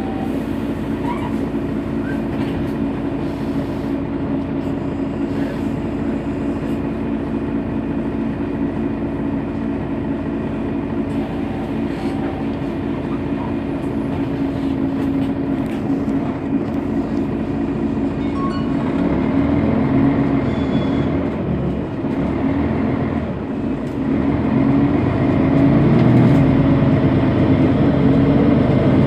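Mercedes-Benz Citaro Facelift city bus engine idling steadily at a stop. About two-thirds of the way in the sound deepens and gets louder, and it grows louder again near the end.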